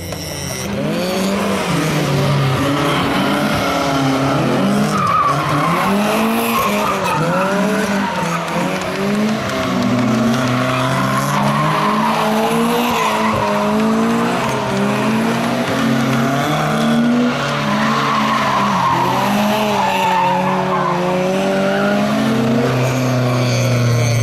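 Car engines revving up and down over and over while cars slide around a roundabout, with tyres squealing and skidding.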